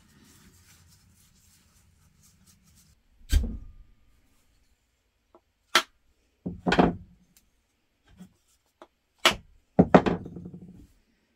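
Faint handling rustle, then a series of sharp knocks and taps, some doubled, the loudest with a short ring after it.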